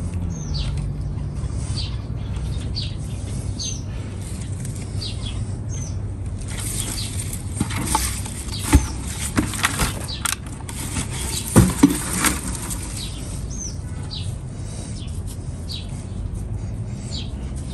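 Hands scooping and pressing loose peat moss and manure compost into a planting hole around a lemon sapling: a crumbly rustle with a few sharp knocks in the middle. A bird gives short falling chirps every second or two throughout, over a steady low hum.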